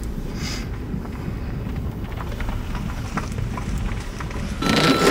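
Car interior while driving: a steady low rumble of engine and road noise with faint scattered ticks. A louder noisy burst comes near the end, with a brief thin steady tone in it.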